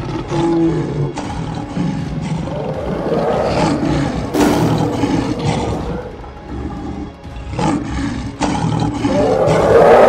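Cartoon lion roaring and snarling over dramatic background music, with several sudden sharp hits; the roars swell about four seconds in and again near the end.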